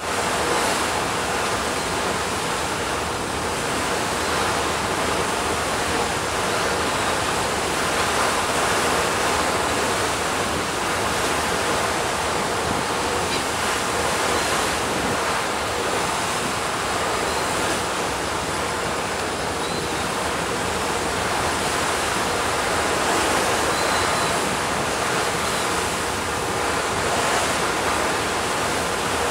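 Steady rush of wind and sea water around a moving ferry, an even, unbroken noise with no distinct events.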